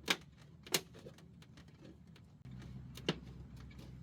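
Emblem clips snapping into a plastic truck grille as the emblem is pushed home: three sharp clicks, two close together at the start and one about three seconds in.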